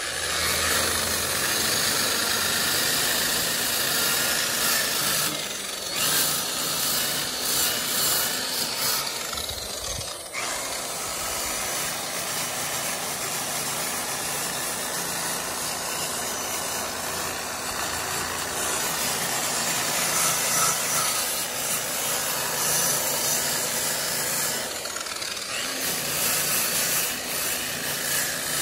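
Makita angle grinder with a grit-impregnated nylon bristle brush running and scrubbing against a painted metal bus body, a steady motor hum under a harsh rasping hiss. The brush is scuffing the old paint around the rivets to give the new paint grip; the sound dips briefly about ten seconds in.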